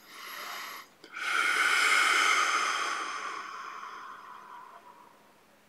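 A person breathing close to the microphone: a short breath in, then about a second in a long, loud breath out that fades away over about four seconds.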